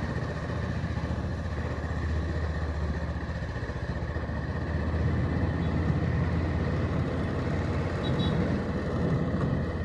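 Motorcycle engine running steadily while riding, with the low rumble of road and wind noise on the camera's microphone.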